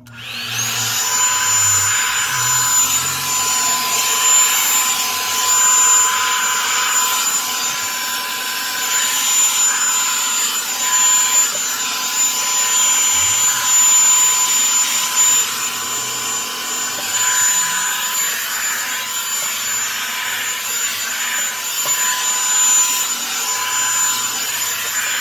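Revlon One-Step Volumizer hot-air brush dryer switched on and running. Its high whine climbs to pitch within the first second, then holds steady over a strong rush of air.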